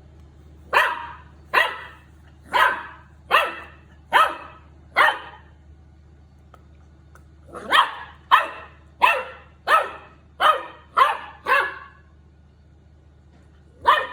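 Golden retriever puppy barking at a plastic bottle: two runs of barks, six then seven, a little under one bark a second, with a pause of about two seconds between them and one more bark right at the end.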